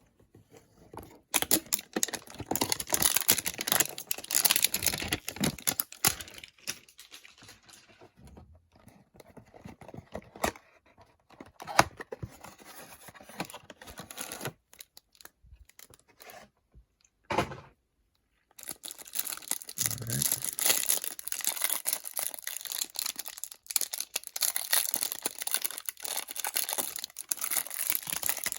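A trading-card hanger box's cardboard and plastic wrapping torn open and crinkled by hand. There are two long stretches of rustling and tearing, with quieter handling and scattered clicks between them.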